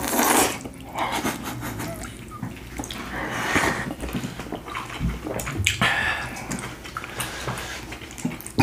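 Close-up wet mouth sounds of a person chewing and slurping spicy noodles, with small irregular smacking clicks.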